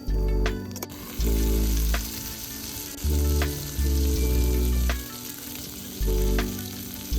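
Food sizzling as it fries, a steady hiss that starts suddenly about a second in, over background music with a pulsing bass line.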